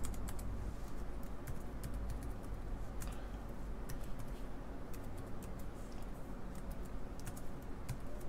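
Typing on a laptop keyboard: a run of quick, irregular key clicks over a steady low hum.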